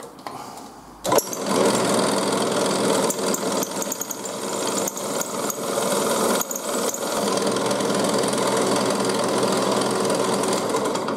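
Bench drill press running a homemade stepped sanding spindle of several sanding drums, with a piece of wood pressed against the turning sandpaper. The motor comes on sharply about a second in and then runs steadily.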